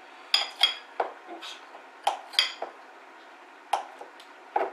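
Knife chopping a block of butter in a glass bowl, the blade knocking against the glass in irregular sharp clinks, about nine in all, with a pause of about a second in the middle.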